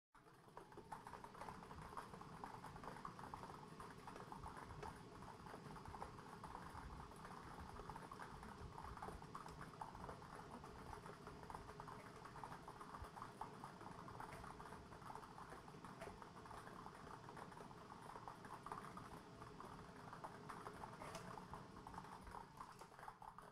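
Yellow plastic lottery balls tumbling inside a clear acrylic lottery drum, a continuous rapid clatter of small clicks as the balls are mixed before a number is drawn.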